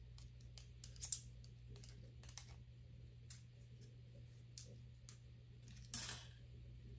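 Faint, irregular small clicks and taps of die-cut paper pieces being picked and pressed out of the cut sheet by hand and with a pick tool, with one brief louder rustle about six seconds in, over a low steady hum.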